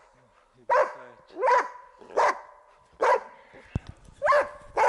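Hunting dog barking steadily, six barks at roughly one every three-quarters of a second, at a sable it has treed in a larch overhead. A single sharp click sounds just before the fifth bark.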